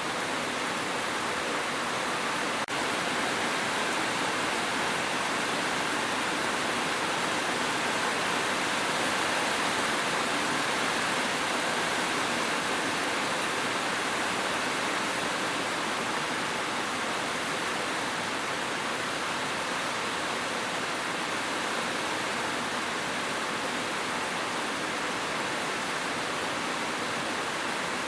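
Steady rain falling, an even hiss with no separate drops standing out.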